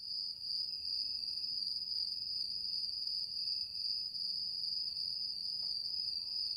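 Crickets chirping in a continuous high-pitched trill.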